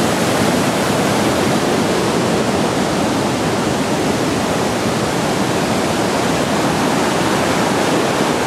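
A mountain river churning over rocks, as a steady, even rush of water.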